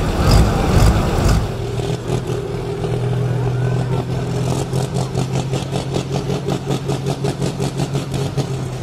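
A Super Sport class pulling tractor's engine running loud under full load, cut off abruptly about a second and a half in. Pulling tractors then idle with a steady low hum, joined about halfway through by an even pulsing of about five beats a second.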